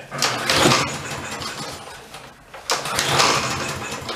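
Walk-behind lawn mower's overhead-valve engine being pull-started: two pulls on the recoil starter about two and a half seconds apart, each a burst of cranking that fades away without the engine staying running.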